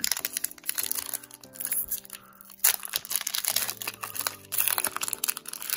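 Foil booster pack wrapper crinkling and tearing open in the hands, with a burst of louder crackling about two and a half seconds in. Background music with sustained notes plays underneath.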